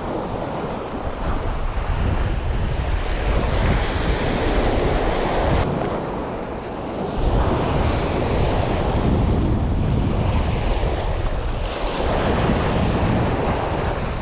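Surf breaking and washing on a sandy beach, swelling and easing every few seconds, with wind buffeting the microphone as a low rumble.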